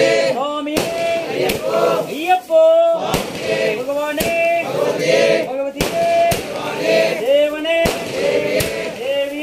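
A group of Ayyappa devotees, mostly men, singing a devotional bhajan together, with sharp hand claps keeping time about once every three quarters of a second.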